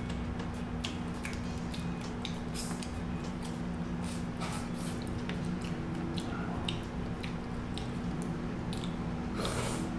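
Close-up eating of seafood: wet squishing and chewing with scattered small clicks, and a longer rustling noise near the end.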